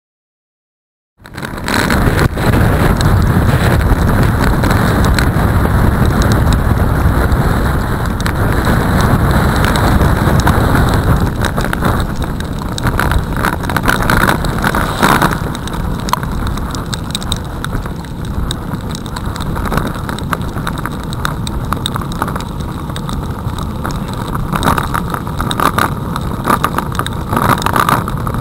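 Wind noise rumbling on a bicycle-mounted camera's microphone while riding on a wet road, with hiss of tyres and rain; it starts abruptly about a second in and eases slightly after about ten seconds. A car passes about halfway through.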